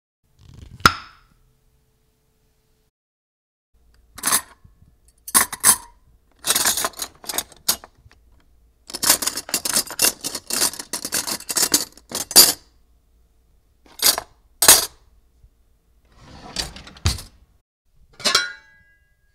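Kitchenware being handled: scattered sharp clinks and knocks, with a dense run of clattering and scraping in the middle. The last clink rings briefly.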